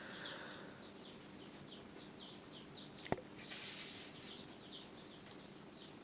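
A bird chirping, a steady run of short falling chirps about three a second, with one sharp click about three seconds in followed by a brief hiss.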